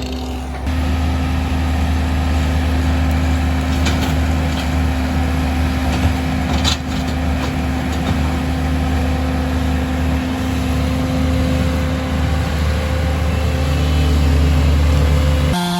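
An engine running steadily at low speed, with a few short knocks, and the engine pitch rising a little near the end.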